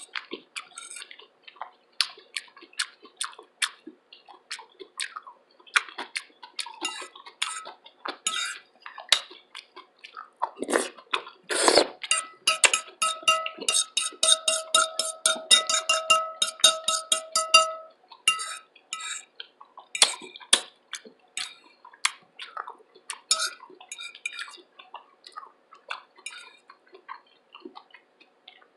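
Close-miked eating: cutlery clinking and scraping on a plate, with chewing in between. In the middle, several seconds of rapid clicking, about five a second, run over a steady ringing tone.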